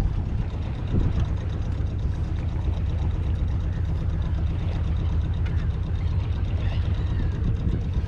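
A sailing yacht's inboard engine running steadily at low speed, a constant low rumble. Faint gull calls come in over it in the second half.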